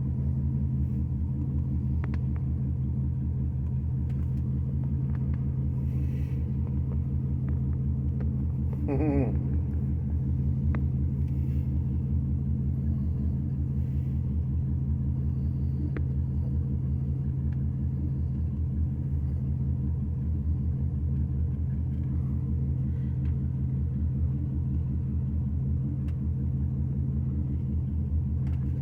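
Corvette engine idling steadily, a constant low rumble.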